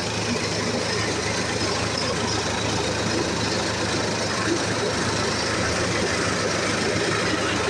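Engine running steadily, driving a Myers high-pressure water pump through a Twin Disc power take-off freshly rebuilt with new clutch plates, pressure plate and bearings; it is pulling the pump without faltering.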